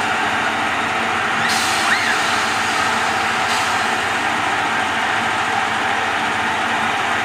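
Steady mechanical running noise of a spinning chair-swing ride. About a second and a half in, a sudden hiss rises over it and fades two seconds later, with a short squeal near its start.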